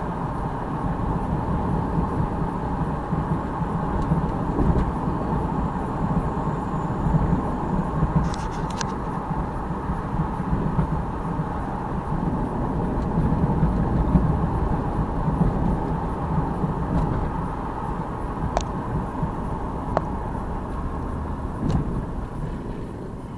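2002 Jeep Liberty's 3.7-litre V6 running smoothly on the road, a steady drone of engine and road noise. A few brief light clicks come through it.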